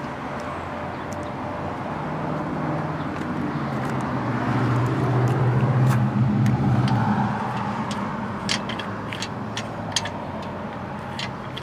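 A road vehicle passing, its engine hum and tyre noise swelling and fading through the middle. Near the end, a run of light clicks as the combination dial of an old rusty Victor safe is turned by hand.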